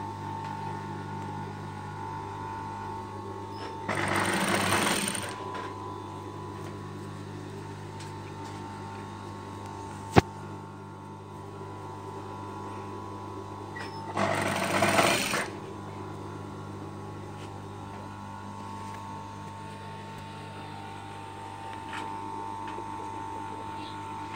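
Table-mounted sewing machine with its motor humming steadily, sewing through thick fleece in two short bursts of about a second each, with one sharp click in between.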